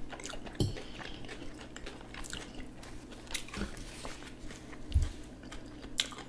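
Close-up chewing and mouth sounds of people eating, with scattered small clicks and a low thump about five seconds in.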